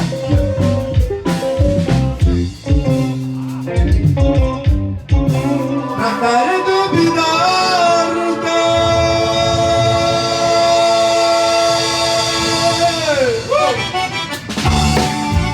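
Live band music played loud through a large PA sound system. A quick rhythmic section gives way to one long held note lasting several seconds, which slides down and stops before the beat comes back near the end.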